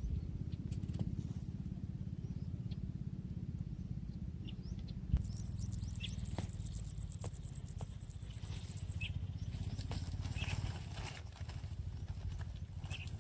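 Outdoor ambience: a steady low rumble, with a thin high buzz lasting about four seconds midway and faint scattered chirps and clicks.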